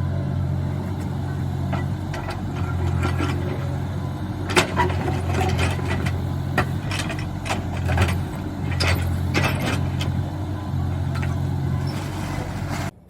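Heavy-equipment engine running steadily, with scattered sharp metallic clanks and knocks over it. The sound cuts off abruptly near the end.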